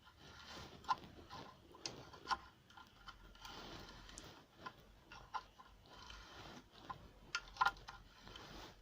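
Faint, scattered clicks and clinks of metal hand tools being handled and sorted, with a few sharper knocks about a second in, a little after two seconds and near the end.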